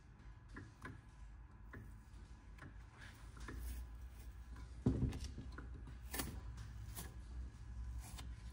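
Faint handling sounds of the worn Teflon non-stick sheet being peeled off a label press's heated platen: scattered light clicks and rustles, with one dull thump about five seconds in.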